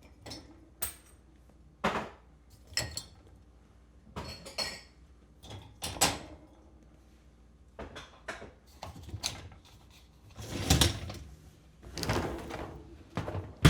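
Dishes being unloaded from a dishwasher and put away: a run of separate clinks and knocks of crockery and cutlery, some ringing briefly. About ten seconds in comes a longer sliding, scraping sound, and a sharp knock falls near the end.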